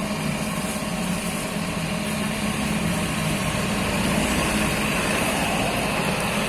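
A motor running steadily: an even low hum under a constant hiss.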